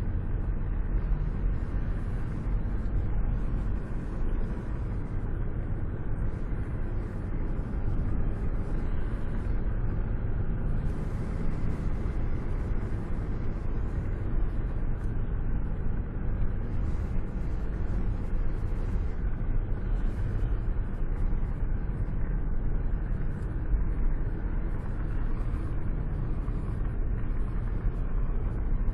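Air rushing past a car cruising at speed, heard with a hand held out of the open window: a steady low rumble of wind and road noise whose level flickers.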